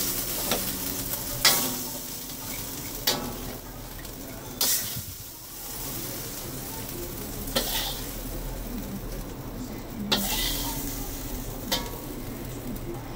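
Sweet and sour shrimp, now cooked, sizzling in a pan while a utensil stirs it. Sharp clacks of the utensil against the pan come every one to three seconds.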